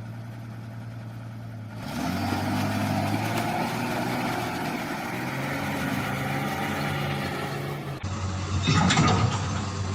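Vehicle engines running steadily, the pitch shifting a little, across abrupt cuts between clips; a loud, short, noisy burst comes about nine seconds in.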